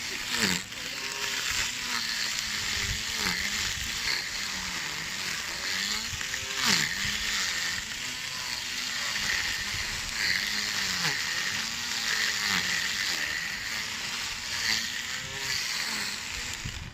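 Small lawn mower's motor running steadily, its pitch dipping and recovering every second or two, with two sharper knocks, about half a second and about seven seconds in.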